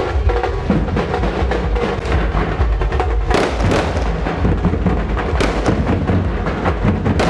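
Loud drumming and percussion music playing continuously, with rapid strokes and three sharp cracks spread through it.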